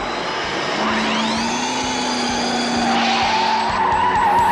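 A vehicle's engine revving up about a second in and then running hard, with skidding tyre noise.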